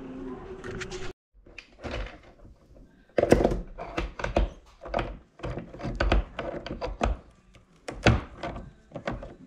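Chain-type geode cracker being worked by hand: a run of metal clunks and knocks as the chain and lever close on a geode, the loudest about three seconds in and again near the end. A steady hum cuts off about a second in.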